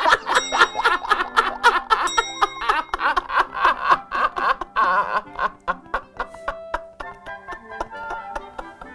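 Men laughing hard over light background music; the laughter dies down about five seconds in and the music carries on.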